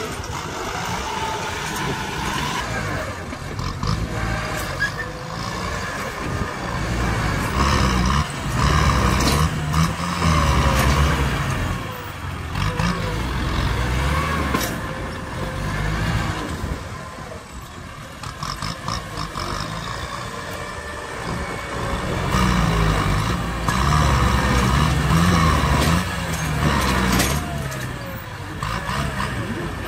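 Diesel engines of two Kubota tractors, an M7040 and an M8540, labouring under heavy load as their front blades push against a hard termite mound. The engine note swells in two long surges, about a third of the way in and again later, with a few sharp knocks along the way.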